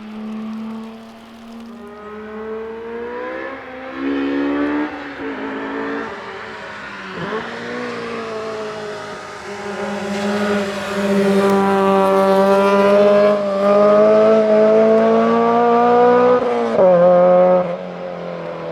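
Car engines accelerating and passing by, several overlapping engine notes rising and falling in pitch, growing louder about halfway through.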